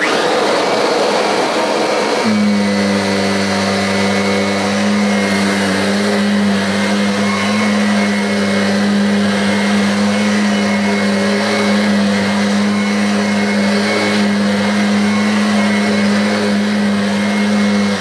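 Kirby Ultimate G Diamond Edition upright vacuum switched on and running at full power, vacuuming sand out of deep-pile carpet. A loud rush of air starts at once, and about two seconds in a steady hum joins it and holds.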